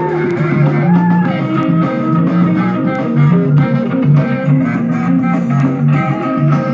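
Live rock band music: electric guitar over a repeating bass line, with a couple of bent guitar notes in the first second or so.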